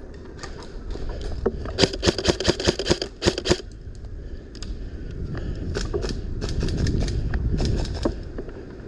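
Airsoft guns firing: a quick string of sharp snaps starting about two seconds in and lasting about a second and a half, then scattered single shots, over a low rumble.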